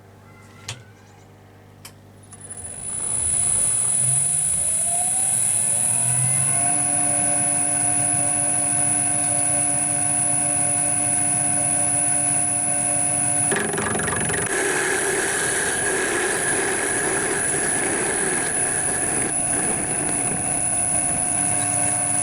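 Metal lathe switched on with a click or two and spinning up over a few seconds, settling into a steady motor hum with a high whine. About halfway through, a parting-off tool starts cutting into hex bar stock, adding a rougher cutting noise over the hum.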